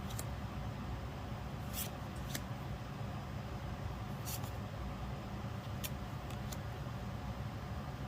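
Pokémon trading cards sliding against one another in brief swishes, about six times, over a steady low hum.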